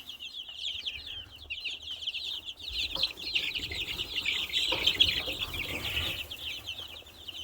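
A group of chickens calling continuously: a dense chorus of many short, high, overlapping peeps.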